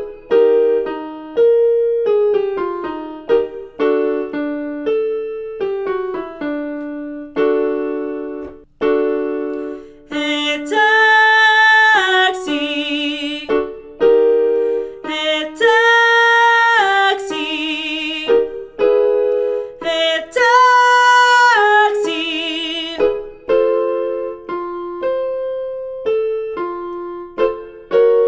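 Piano playing short warm-up note patterns, with a woman's belted voice singing three loud sustained exercise phrases about ten, fifteen and twenty seconds in, each held note ending with vibrato.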